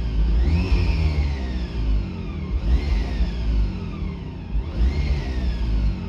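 Electric drive motor of an EV-swapped BMW Z3 whining inside the cabin, over low road rumble. The whine rises in pitch and then falls away three times, about two seconds apart, as the car speeds up and eases off. No knocking is heard now that the missed bolt has been tightened.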